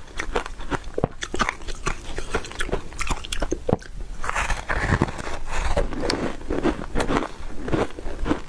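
Close-miked crunching and chewing of soft, powdery freezer-frost 'foam ice'. A fresh bite lands about four seconds in, after a short lull, and is followed by denser crunching.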